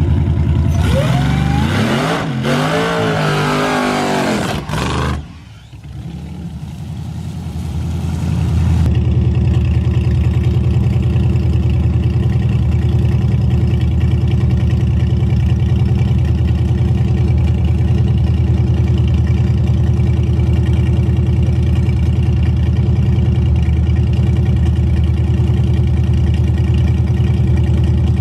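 Supercharged drag car launching and running hard down the strip, its engine note sweeping up and dropping back at the gear changes for about four seconds before fading. From about nine seconds in, an engine idles loudly with a fast, steady pulse.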